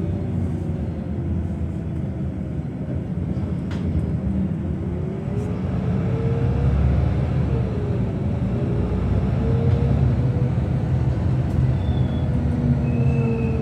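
A motor vehicle running: a steady low rumble, with an engine note that slowly rises and falls in pitch.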